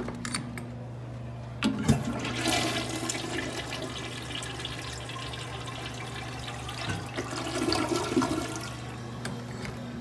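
Toilet flushing: a sharp knock as the flush starts just under two seconds in, then water rushing through the bowl for about seven seconds, dying away near the end.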